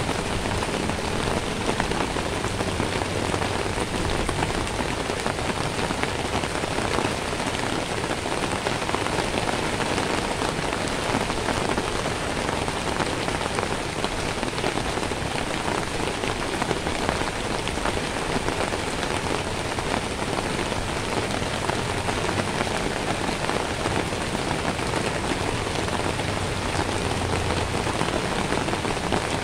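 Steady rain falling on wet pavement, an even hiss of many drops that does not let up.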